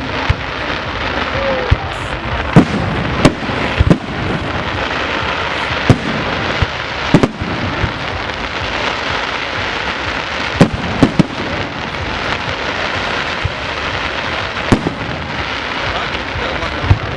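Fireworks display: a string of sharp bangs from exploding shells, irregularly spaced and including a quick run of three near the middle, over a continuous dense crackle and hiss.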